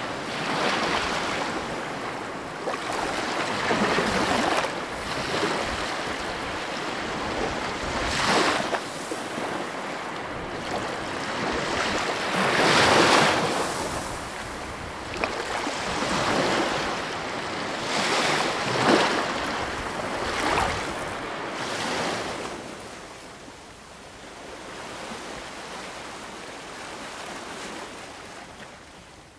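Sea waves washing onto a beach, swelling and falling back every few seconds, growing softer near the end.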